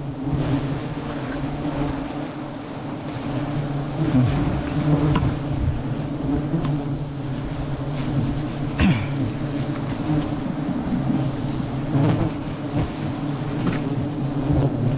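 Swarm of giant honeybees (Apis dorsata) buzzing steadily around their opened nest, a low drone, with a steady high-pitched whine above it. A few short clicks and knocks come from the comb being cut and handled.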